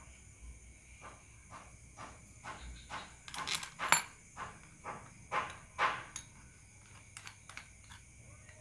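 A run of short scraping or rubbing strokes, roughly two a second, loudest in the middle, as a motorcycle starter motor is worked on by hand. Crickets chirp steadily behind.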